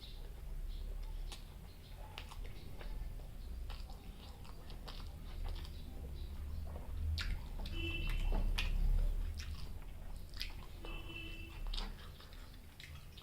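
Close-miked chewing and biting of chicken liver and gizzard with rice: wet mouth clicks and soft crunches. Two brief high chirps sound about three seconds apart.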